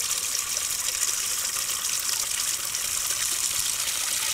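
Rainwater running steadily from a rain barrel into a plastic chicken waterer as it fills.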